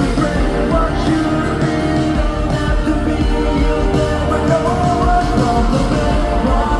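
Live pop song played loud through a concert sound system, with a steady beat and sung vocals.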